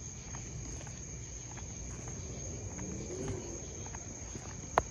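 Crickets trilling in one steady, high continuous note over a low background rumble, with a single sharp click just before the end.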